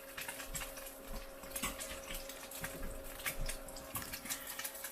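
An egg frying in hot oil, sizzling with irregular spitting crackles, and a faint steady hum underneath.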